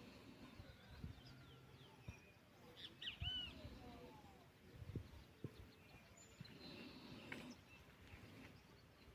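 Faint birdsong in the dry scrub of the sertão: scattered short chirps and whistled calls, with the loudest run of chirps about three seconds in.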